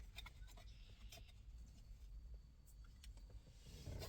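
Near silence with a few faint, short clicks as a wiring connector is pushed on and clipped into the steering wheel.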